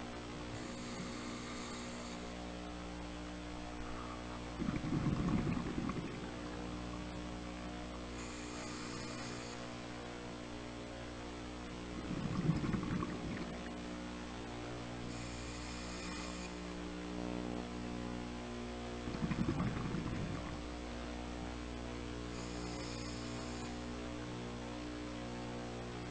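Scuba diver breathing through a regulator underwater: a short hiss on each inhale, then a few seconds later a louder burst of bubbling exhaled air, the cycle repeating about every seven seconds. A steady hum and a thin high whine sit underneath.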